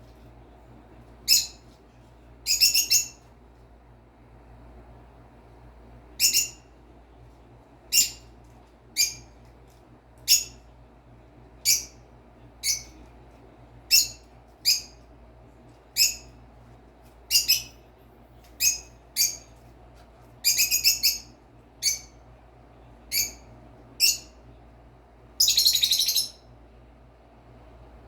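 Pet bird chirping: short, sharp, high chirps about once a second, broken by three longer chattering runs, the longest near the end.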